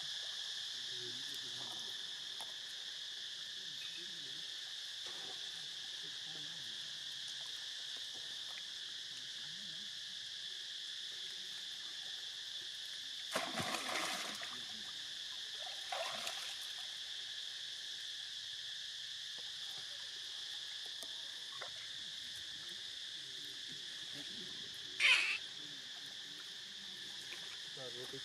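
Steady high-pitched drone of an insect chorus. A few short sharp noises break through it: one about halfway through, a smaller one a couple of seconds later, and the loudest near the end.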